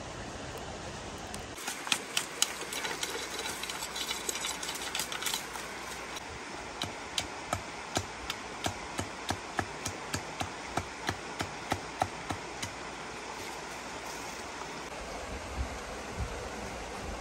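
Large knife chopping at a bamboo stick laid against a log, shaping it into a skewer: first a quick flurry of knocks, then a steady run of chops about three a second.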